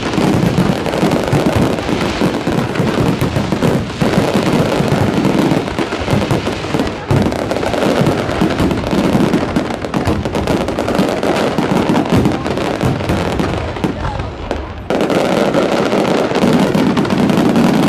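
Fireworks display: a dense, continuous barrage of bangs and crackling, dipping briefly twice.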